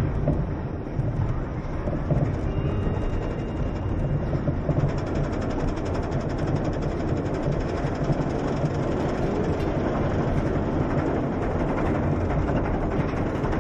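Looping Star roller coaster train climbing its lift hill: a steady mechanical rumble with rapid, even clicking.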